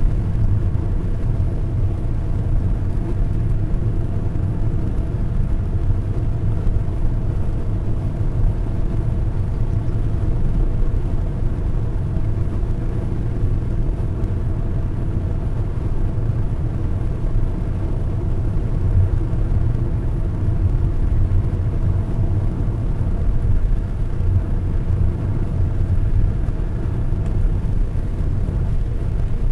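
Car driving steadily along a country road, heard from inside the cabin: a continuous low rumble of engine and tyre noise with a faint steady hum above it.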